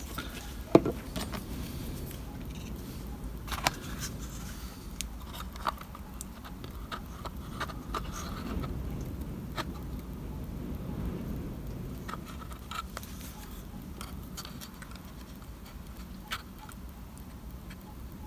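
Scattered small clicks, taps and light scrapes as tweezers and small glued card pieces are handled and pressed into place inside a card model building, with the sharpest click about a second in. A faint steady low hum runs underneath.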